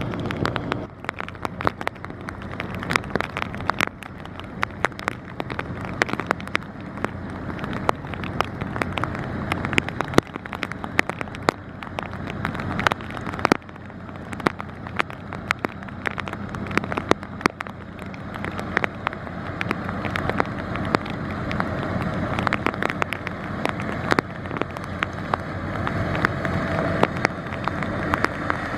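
Low, steady drone of an inland vessel's diesel engine, slowly growing louder toward the end, overlaid throughout by many sharp crackles and clicks.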